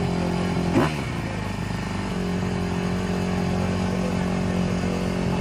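Motocross dirt bike engine idling steadily, blipped once about a second in so that the pitch jumps up and then settles back to idle.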